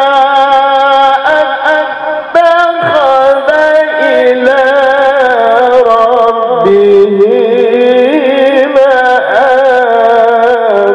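Male qari reciting the Quran in a melodic, sung style into a handheld microphone: long held notes with wavering ornaments, stepping down to a lower held note about halfway through.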